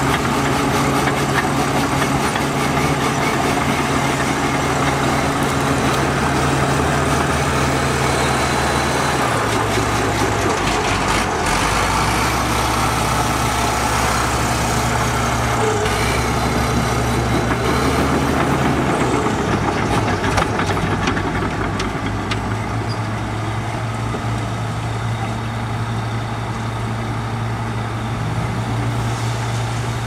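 Diesel engines of heavy earthmoving machinery running continuously, a steady drone whose pitch steps a few times: about a third of the way through and again around halfway.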